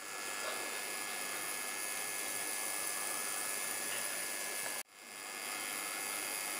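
Steady hiss of recording noise, with faint steady high tones beneath it, while a Z-scale model locomotive runs. The sound drops out abruptly for an instant about five seconds in, then the same hiss resumes.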